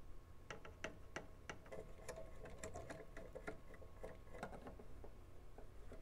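Faint, irregular clicks and ticks of a slim screwdriver turning out the screws that hold a power amplifier's circuit board to its heatsink, busiest in the first four and a half seconds.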